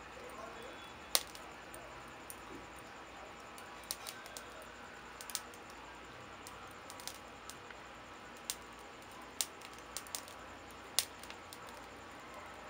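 Split-wood kindling catching fire on charcoal in a grill, crackling with scattered sharp pops at irregular intervals over a low steady hiss.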